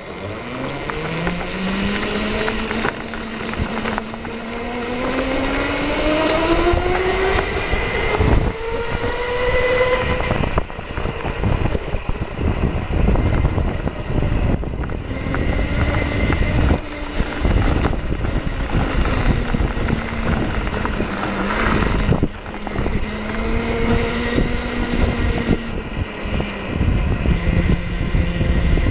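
Electric go-kart with dual 48-volt, 1000-watt motors driving under power, its motor whine rising steadily in pitch over the first ten seconds as it picks up speed, then fading and climbing again several times as it slows and speeds up. Rolling and wind noise runs under the whine throughout.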